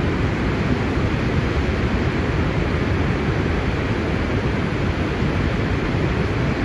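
Water released through the open spillway gates of a concrete gravity dam pouring down the spillway chute: a steady, even rushing, heaviest in the low range, from a flood-control release.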